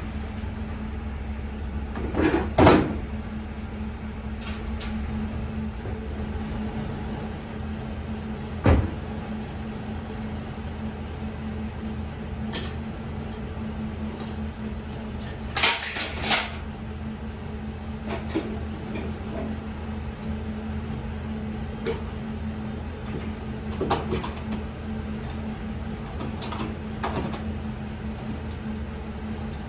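Scattered metal clanks and clicks from a Pathfinder snowplow's mounting hardware (lift chain, pins and latches) being handled, with two sharp knocks close together about halfway through. A steady low hum runs underneath.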